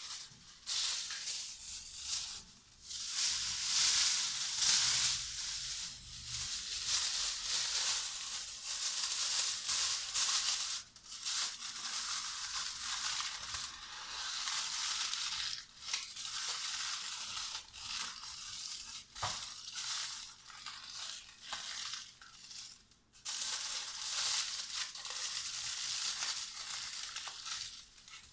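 Aluminium foil crinkling and crackling as it is pressed and crimped by hand around a small mould, in uneven bursts with short pauses.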